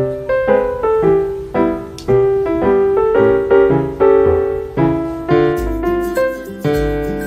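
Background piano music, a steady run of struck notes. A deep bass comes in a little over two-thirds of the way through.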